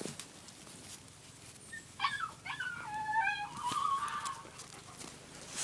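Husky sled dog whining: a string of short, high whines and yips that rise and fall in pitch, starting about two seconds in and lasting about two seconds.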